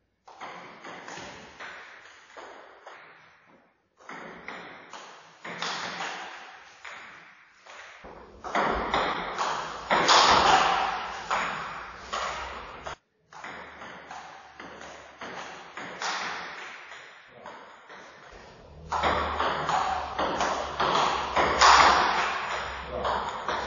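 Table tennis rallies: the ball ticking off the rubber bats and bouncing on the table in quick alternating strikes, each with a short echo in the bare hall. The exchanges are loudest about ten seconds in and again about twenty seconds in.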